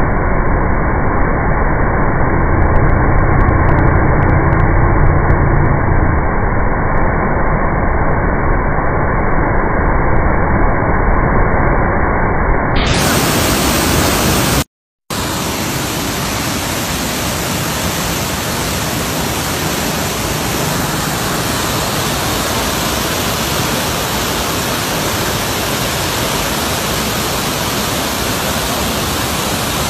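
Steady rushing of a muddy river in flood, heard as an even, loud wash of noise. The sound changes abruptly about 13 seconds in, and cuts out for a moment about 15 seconds in.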